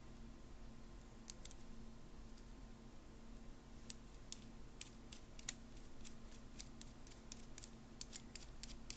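Faint, sharp metal clicks from small tools working a C-clip onto a profile lock cylinder: a few about a second in, then many in quick irregular succession from about four seconds in.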